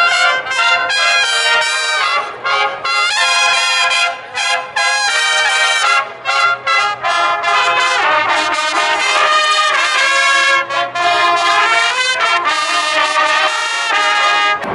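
Brass band of trumpets and other horns playing a tune together, loud, in phrases of held notes broken by short gaps.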